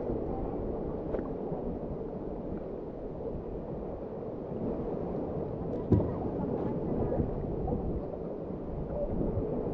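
Water lapping and gurgling against the hull of an outrigger boat, with wind on the microphone; a single sharp knock about six seconds in.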